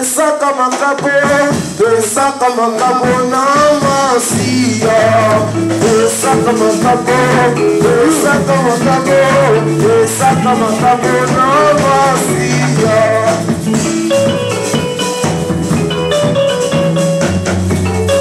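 Church choir singing in chorus over live band accompaniment, with a steady bass line coming in about four seconds in and rattling percussion keeping the beat.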